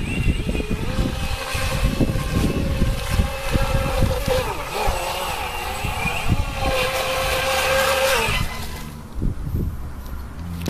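WL915 RC racing boat's brushless electric motor whining at speed, its pitch wavering up and down with throttle and turns, then stopping a little over eight seconds in.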